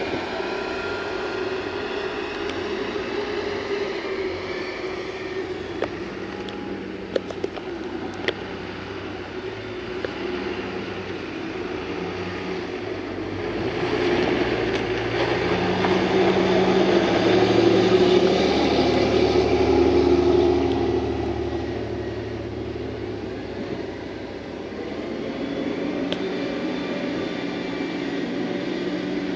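A motor vehicle passing, its engine and road noise swelling to a peak about two-thirds of the way through and then fading, over a steady outdoor rumble. A few sharp clicks about a quarter of the way in.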